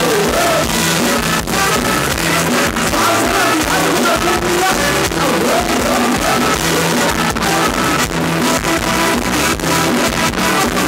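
Live band playing loud Thai ramwong dance music, with drums keeping the beat and a singing voice over it.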